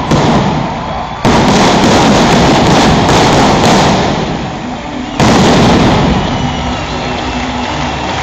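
Indoor arena pyrotechnics firing over an ice rink: loud bursts that start suddenly about a second in and again about five seconds in, each a sustained rush of noise lasting a few seconds.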